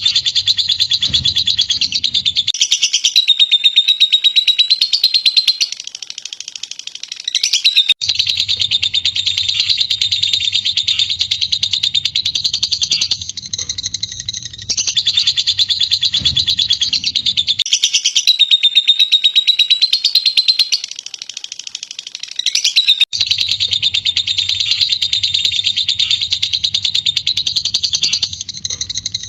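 Lovebird ngekek: a long, fast, shrill chattering trill that runs almost without a break, dipping briefly twice. A faint low hum sits under parts of it.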